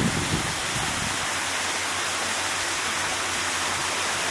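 Steady rushing hiss of running or splashing water, even and unbroken.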